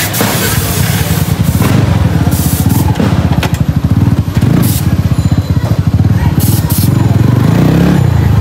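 Motorcycle engine running at low speed with a rapid, even exhaust pulse, the throttle opened and eased a few times as the bike is ridden slowly.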